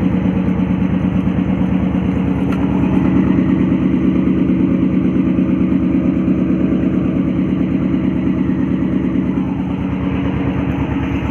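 Fishing boat's engine running steadily at a constant speed, with a fast, even firing beat.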